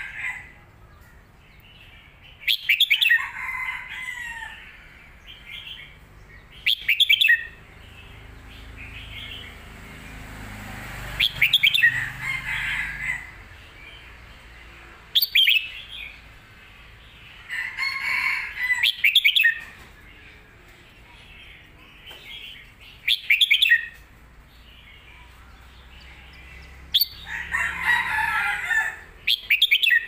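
Red-whiskered bulbul singing short, loud phrases about every four seconds, each opening with a few sharp high notes and running into a quick warble.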